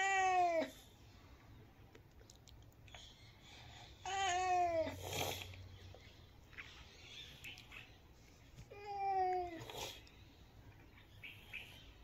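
Domestic cat meowing three times, about four seconds apart, each meow under a second long and dropping in pitch at its end.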